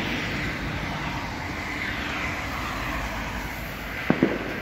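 Steady rushing noise of passing road traffic, swelling and fading slowly, with two sharp clicks about four seconds in.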